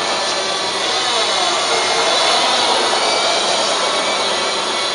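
Forklift running as it is driven, a steady loud whooshing mechanical noise.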